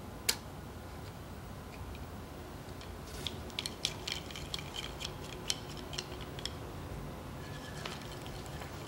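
Japanese red inkpot (shutsubo) being handled: a single sharp click, then a run of quick light ticks for about three seconds as the line is drawn off its reel.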